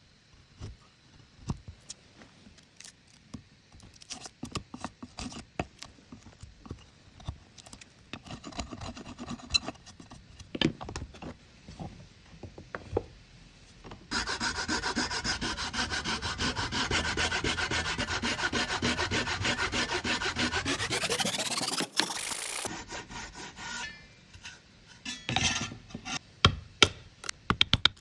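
Wood being worked with tools: scattered scraping, rubbing and tapping, then about seven seconds of steady, fast rasping or sawing on wood that ends in a sharply rising pitch, followed by more taps.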